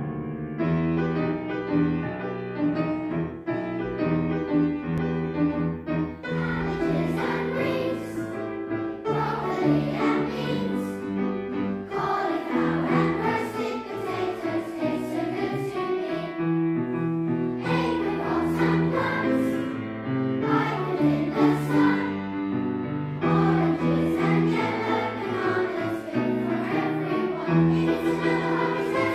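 A children's choir singing a song, with instrumental accompaniment.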